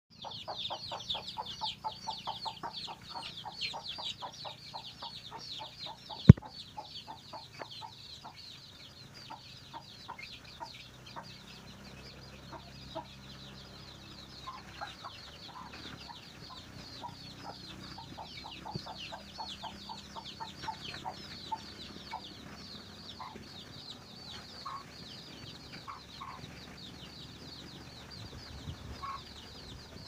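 Chicks peeping without pause in short, high, falling notes while the mother hen clucks in quick runs as she scratches for food, the call a hen uses to bring her chicks to food. A single sharp knock about six seconds in.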